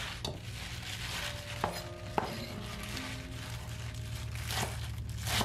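Chef's knife chopping fresh spinach on a wooden cutting board, a handful of separate sharp strikes spread through.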